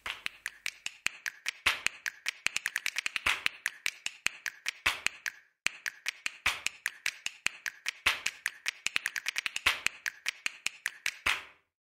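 A rapid run of sharp clicks, about ten a second and uneven in loudness, with a brief break about five seconds in; it stops just before the end. It serves as a clicking sound effect under an animated intro.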